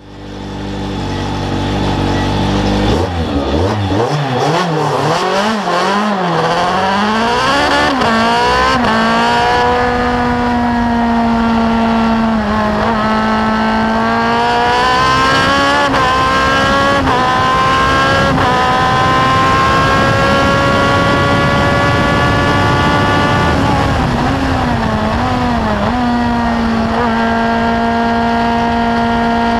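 Martini Formula 2 single-seater race car's engine heard onboard, over wind and road noise. It runs steadily at first. About three seconds in, the revs rise and fall unevenly, then climb hard through the gears, dropping sharply at each upshift. Long stretches follow at high, steady revs, with a wavering lift and pick-up near the end.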